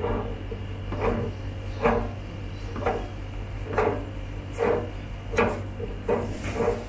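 A caster on a steel TV-cart leg being turned by hand to screw its threaded stem in. Each turn gives a short metal scrape, about once a second, nine times over.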